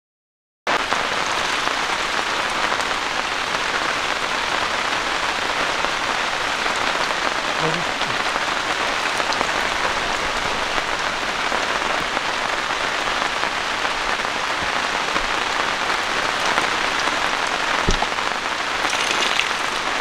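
Heavy rain pouring down steadily as a dense, even hiss, starting abruptly just under a second in. A single sharp tap is heard near the end.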